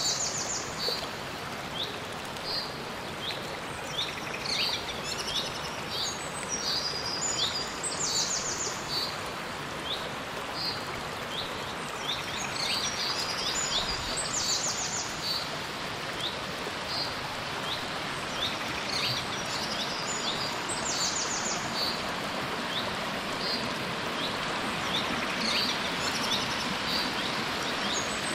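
Small rocky mountain stream running, a steady rush of water, with birds calling again and again over it in short high chirps and quick trills.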